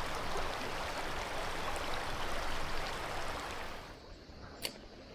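River water flowing, a steady rushing hiss that drops much quieter about four seconds in. There is one sharp click shortly after.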